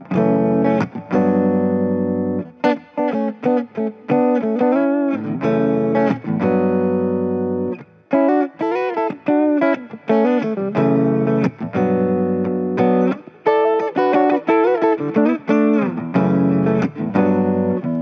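Gibson SG Special electric guitar playing a single-note lead line: held notes, quick runs, and notes bent and shaken with vibrato.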